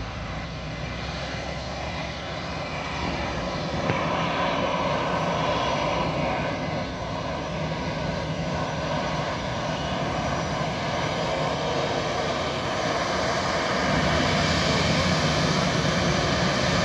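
Airbus A318 airliner's jet engines running at taxi power as it taxis down the runway and turns at its end: a steady engine noise that grows louder about four seconds in and again near the end.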